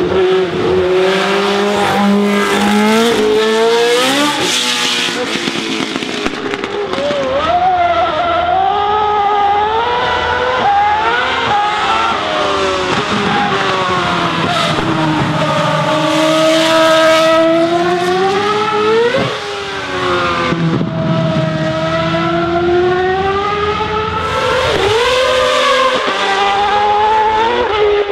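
Formula 1 racing engines at high revs, one car after another: first a 1970s Marlboro McLaren with its Cosworth DFV V8, then a modern Ferrari F1 car. Each engine note climbs through the gears and drops at every upshift, and about two-thirds of the way through there is a sudden switch to another car.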